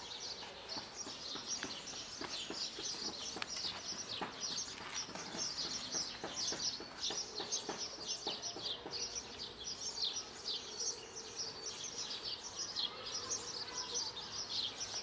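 Birds chirping continuously in quick, high-pitched calls, with close crunching of a cat chewing dry kibble for much of the first half.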